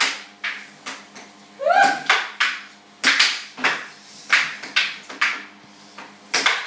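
Plastic puck and mallets on a tabletop air hockey game clacking in a fast, irregular rally of sharp hits, over the steady hum of the table's air blower. A brief rising vocal whoop comes about two seconds in.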